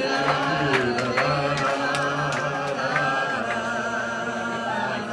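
A group of people singing unaccompanied, several voices together on a slow tune, with a held note about three seconds in. Scattered sharp clicks sound through the singing.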